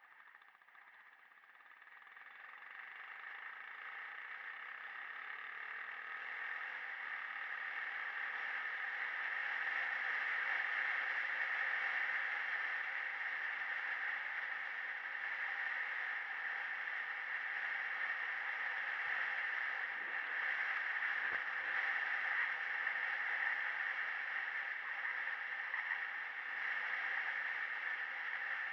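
Yamaha WR125R's single-cylinder four-stroke engine running at a steady pace, growing louder over the first ten seconds or so and then holding level.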